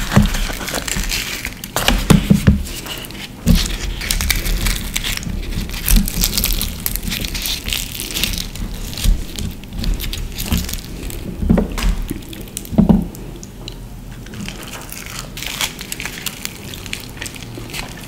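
Close-miked crackling and tearing of puffed, deep-fried bhatura bread pressed and torn apart by hand, with a few louder thumps and soft wet squishes as pieces scoop up chickpea curry.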